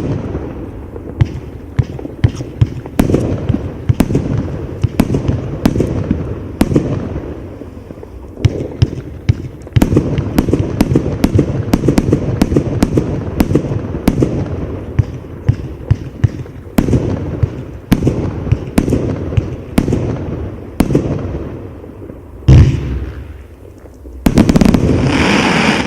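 Rolling Thunder 150-shot compound firework cake firing shot after shot in quick succession: sharp bangs over continuous crackling. A very loud bang comes about 22 seconds in, then a dense volley near the end.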